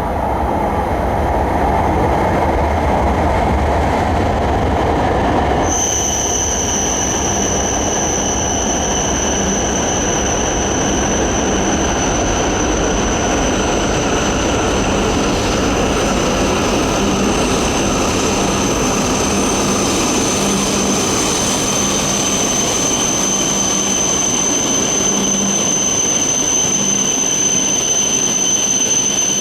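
Tohoku Shinkansen E2-series train running along the platform, with a steady high-pitched squeal that sets in suddenly about six seconds in and holds.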